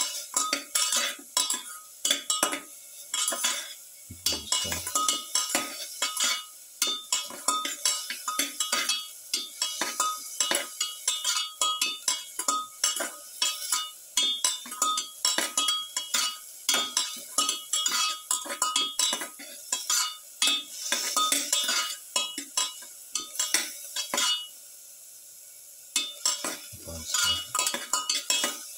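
A spoon stirring and scraping onions and shallots frying in oil in a stainless steel pan, with rapid clinks of metal against the pan. Under the stirring is a faint sizzle. The stirring pauses for about two seconds near the end, leaving only the sizzle.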